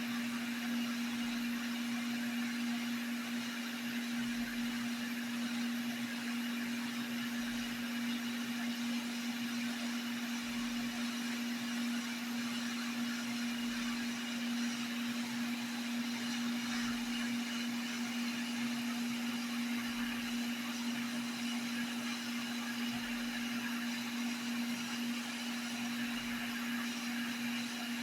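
Hot-air rework station blowing steadily on a circuit board, a constant fan hum with airflow hiss, heating the solder joints to lift off the old Nexus connector.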